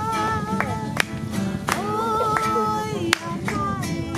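Voices singing a song together, with sharp hand claps keeping the beat every half second or so.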